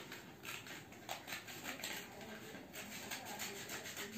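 Small blade cutting through a brown paper courier mailer bag, a faint scratchy rasp in a run of short strokes as the paper is slit along its edge.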